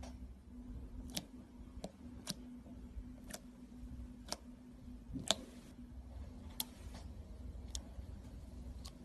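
Clear slime being pressed and stretched, giving off sharp popping clicks about once a second, some followed by a short hiss, over a faint steady hum.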